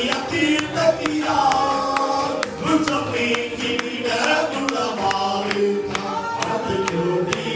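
Men singing a Tamil Christian worship song into microphones, carried through a PA, over a steady beat of sharp percussive taps.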